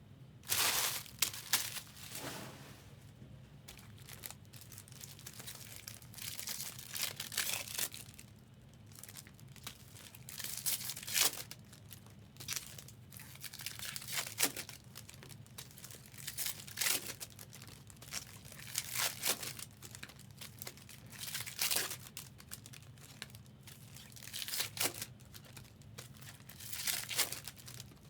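Foil trading-card pack wrappers being torn open and crinkled, one after another, in repeated bursts every couple of seconds.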